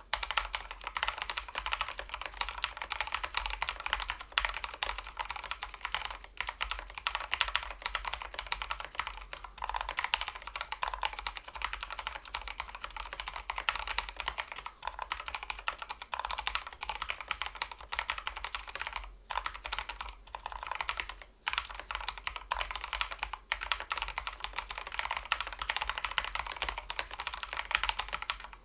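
Fast continuous typing on a Drop CTRL mechanical keyboard fitted with Kailh Pro Purple tactile switches, lubed with Krytox 205g0, under XDA-profile keycaps, in a foam-lined case. A dense, steady stream of key clicks, broken by a couple of brief pauses in the second half.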